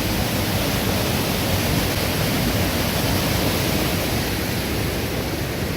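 Steady rushing of a rain-swollen river, an even hiss of water with no breaks.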